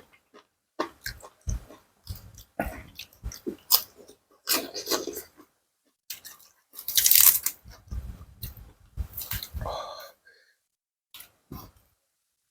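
Close-up chewing of a spicy seafood salad with squid, shrimp, enoki mushrooms, corn and fresh vegetables: irregular crunching, biting and wet mouth clicks, with a louder crunching stretch about seven seconds in.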